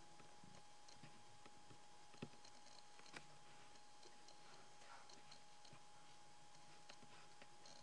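Near silence: room tone with a faint steady hum and a few faint, irregularly spaced clicks.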